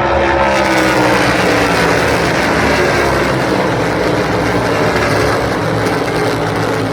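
NASCAR Cup Series stock cars' V8 engines running at racing speed past the listener. Several engine notes overlap, and one falls in pitch over the first couple of seconds as a car goes by.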